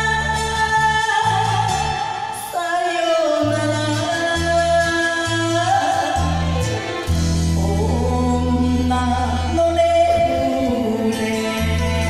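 A woman singing an enka song into a microphone over a karaoke backing track, holding long notes that bend in pitch above a steady bass line.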